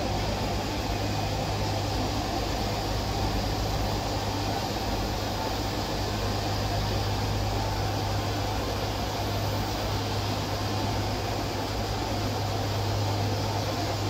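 Steady mechanical room noise with a low hum, from machinery or air handling running in a factory room.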